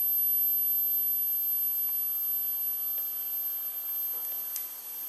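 TIG welding arc running along the top edge of two sheet-metal plates, fusing them without filler wire: a steady hiss with a thin high-pitched whine, getting a little quieter toward the end.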